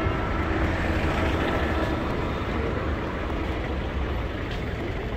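Street traffic: a steady low rumble of car and truck engines and tyres passing close by, easing a little after the middle.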